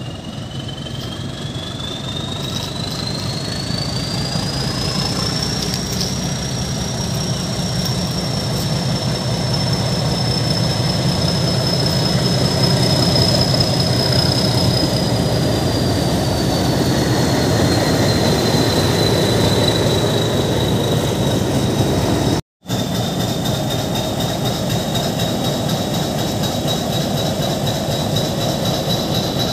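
YDM-4 metre-gauge diesel locomotive running past with its coaches: a deep engine drone under a high whine that climbs over the first few seconds, holds, then sinks a little, growing louder as the locomotive nears. The sound drops out for an instant about two-thirds through, then the engine runs on.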